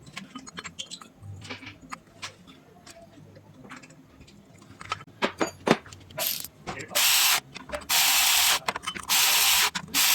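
Metal tools clinking and knocking during car repair work, then a power tool run in four or five short loud bursts of about half a second each, starting about six seconds in.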